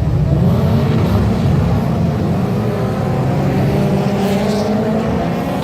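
A field of saloon racing cars accelerating away together at a race start, many engines running hard at once, with engine notes rising in pitch over the second half.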